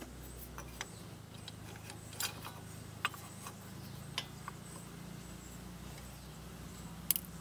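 A handful of light, scattered metallic clicks and taps as an old brake pad is set against a brake caliper piston and a G-clamp is positioned over it, over a steady low hum.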